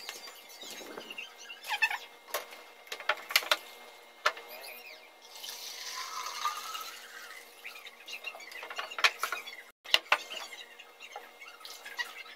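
Plastic bottles and a plastic jug knocking and clicking as they are handled. About five seconds in, water is poured from the jug into a plastic bottle for roughly two seconds.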